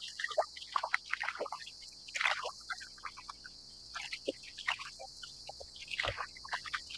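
Small waves lapping and gurgling against a kayak hull in quick, irregular splashes, with one heavier slap about six seconds in. A steady high hiss of cicadas runs underneath.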